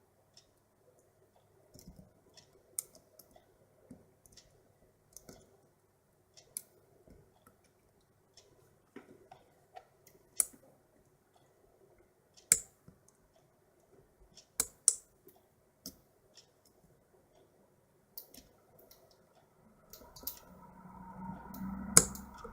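Lock pick and tension wrench working the pins of a padlock during single-pin picking: scattered sharp metallic clicks, one every second or so, a few louder than the rest. Near the end comes a low rumble of the lock being handled.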